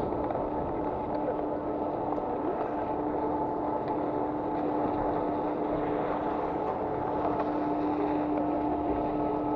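Skis running over packed snow with wind rumble on a helmet-mounted camera's microphone, and a steady hum underneath.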